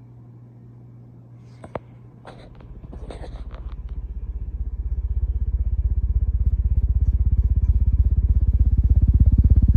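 A sharp click, a few lighter clicks, then a ceiling fan starting up: a fast, even, pulsing low rumble that grows steadily louder as it gathers speed.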